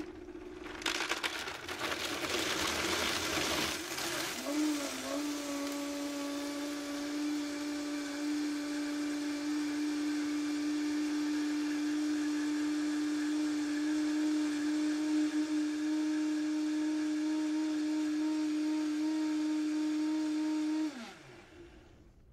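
Vitamix 5200 blender crushing a jar of ice and whole citrus at high speed: a rattling clatter of ice for the first few seconds, then a steady motor whine once the mix turns smooth. About 21 seconds in it is switched off and the motor winds down in falling pitch.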